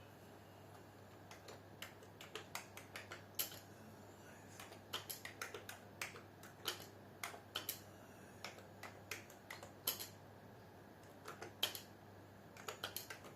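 Someone typing on a computer keyboard: irregular key clicks in quick runs with short pauses.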